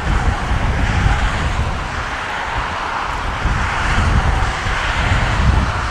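Twin-engine jet airliner passing low overhead, its engines a steady rushing noise that is strongest through the middle. Gusty storm wind rumbles on the microphone underneath, easing a couple of seconds in and picking up again near the end.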